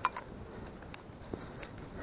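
Footsteps of a hiker walking on a trail, with a few light clicks and knocks scattered through.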